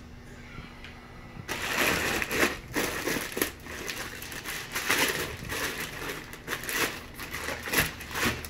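Thick clear plastic bag liner crinkling and rustling as hands pull it open and gather it inside a styrofoam fish-shipping box, starting about a second and a half in and going on in irregular bursts.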